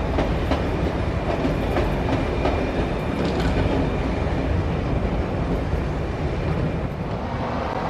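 TPER ETR 350 electric multiple unit (a Stadler FLIRT) rolling slowly past, its wheels clicking irregularly over rail joints and points in the first few seconds, under a steady running rumble.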